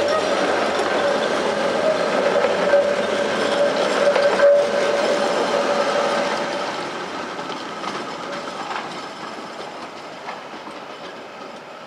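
HTM GTL-8 electric articulated tram pulling away from its terminus, its wheels running over the rails with a steady tone and a sharp knock about four and a half seconds in. From about six seconds in it fades as the tram moves off down the line.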